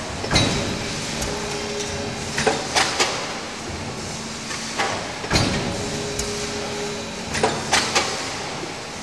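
Automated multi-station deep-drawing transfer press line stamping oil filter housings, running through its cycle about every five seconds. Each cycle starts with a heavy knock, followed about two seconds later by a quick cluster of three sharp metal clacks, over a steady machine hum.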